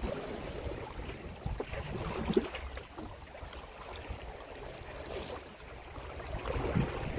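Wind buffeting the microphone over small waves washing against a rocky shore, a low, uneven rumble that eases off in the middle and picks up again near the end.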